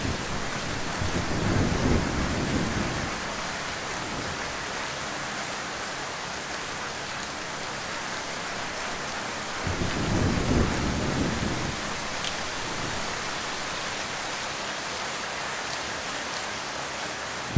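Heavy rain falling steadily, with low rolls of thunder rumbling twice, briefly about a second in and more strongly about ten seconds in.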